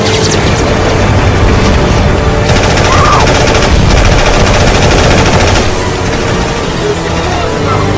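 War-film battle soundtrack: rapid machine-gun fire, heaviest through the middle few seconds, over film music with sustained low notes.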